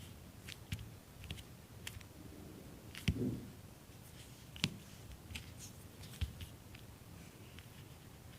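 Slime being squeezed and handled by hand: scattered small sticky clicks and pops, with a louder squelching thump about three seconds in and a sharp pop a little later.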